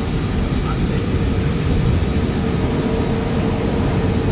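Steady cockpit noise of an Airbus A320 on approach, a rushing, low-weighted noise of airflow and engines, with a steady tone that comes in about half a second in. A couple of faint clicks in the first second.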